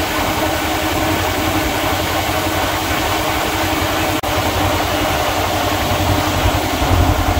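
A 14-inch roof fan in a Kawasaki Teryx KRX 1000 cab running at full speed, a steady rush of air over the side-by-side's engine idling with a low rumble. The rumble grows louder near the end.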